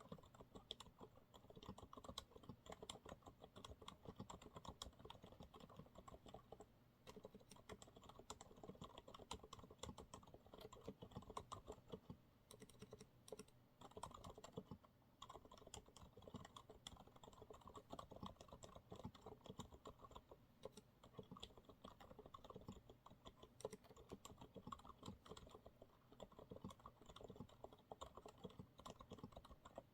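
Steady, fast typing on a Monsgeek MG108W mechanical keyboard with TTC silent brown switches: a dense run of soft, muted key clicks, with short pauses now and then.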